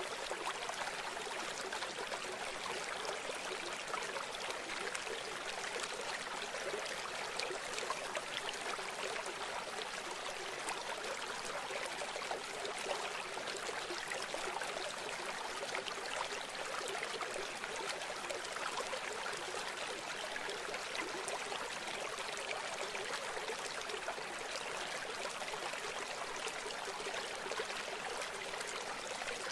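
Steady, unbroken rushing sound like flowing stream water, with no low rumble.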